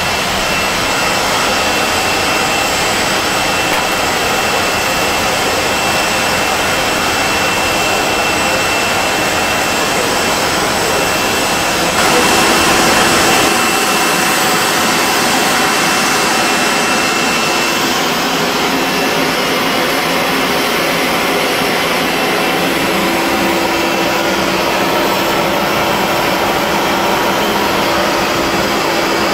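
Tupolev Tu-134B-3's rear-mounted Soloviev D-30 turbofans running on the ground, heard from the cabin as a steady rushing hiss with a thin high whine. About twelve seconds in it briefly gets louder, and after that a lower steady hum holds.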